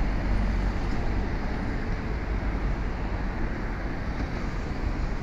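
Wind rumbling steadily on the microphone over the faint running noise of a Hankai Tramway Mo 500-type tram approaching from far down the track.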